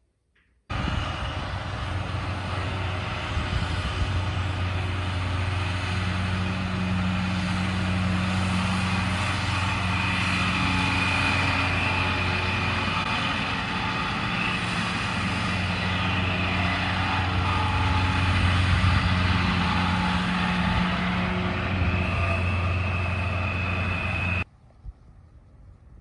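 Farm tractor pulling a mower-conditioner through a hay field: a steady engine drone with a high whine from the machinery over it. It starts suddenly about a second in and cuts off suddenly shortly before the end.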